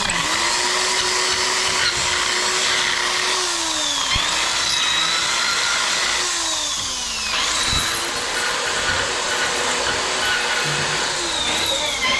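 Electric drill run in several bursts of a few seconds each, its motor speeding up, holding and then slowing down again each time.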